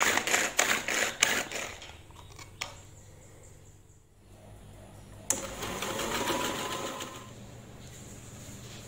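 Small electric blender running in a few short pulses, then after a quieter spell an electric stand mixer switched on with a click and running, beating butter and icing sugar.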